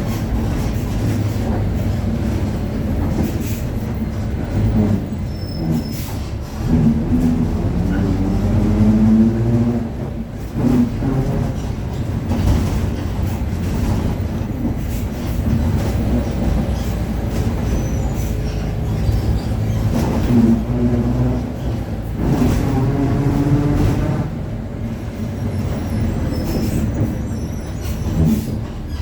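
Mercedes-Benz OF-1721 BlueTec5 city bus under way, heard from inside: a steady diesel and drivetrain rumble with the differential growling. A whine climbs in pitch as the bus picks up speed a few times, about seven seconds in and again near twenty seconds.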